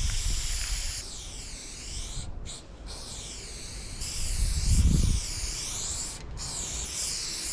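Aerosol spray paint can hissing in long strokes, the hiss shifting in tone as the can sweeps across the wall. It stops for a moment about two seconds in and again near the end. A low rumble swells about five seconds in.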